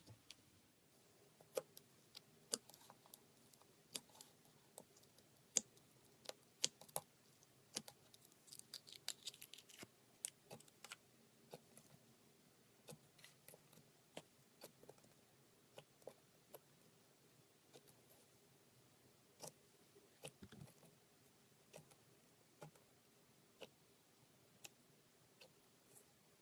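Slime being played with by hand: irregular sticky clicks and small pops, at times in quick clusters, over near silence.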